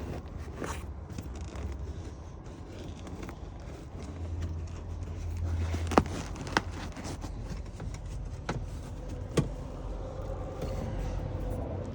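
Scraping and handling noise of hands working at a truck seat, with four sharp plastic clicks, the loudest about six seconds in, as push pins are pried out of the seat.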